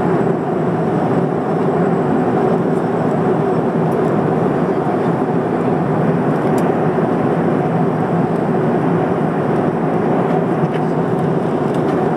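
Steady roar of engines and rushing air inside the cabin of an Airbus A300-600R airliner in cruise, with a few faint ticks.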